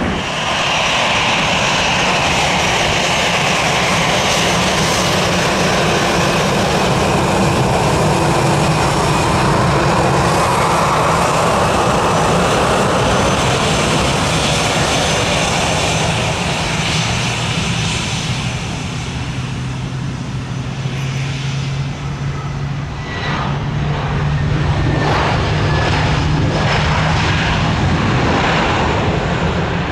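Jet airliner engines running loud on and near the runway, a dense rushing noise over a steady low drone. The noise eases a little past the middle, then builds again.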